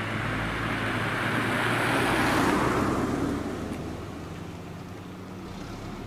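Small Ford hatchback driving past close by: engine and tyre noise swell to a peak about two seconds in, then fade as it moves away.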